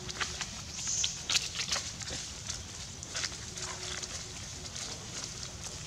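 Macaques moving about over dry leaves: scattered short crackles and rustles, with a brief high chirp about a second in.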